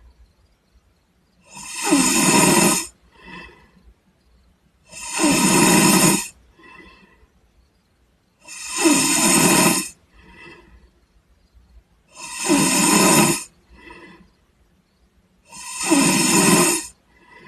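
A sleeping person snoring: five loud snores about every three and a half seconds, each a little over a second long and followed by a fainter breath out.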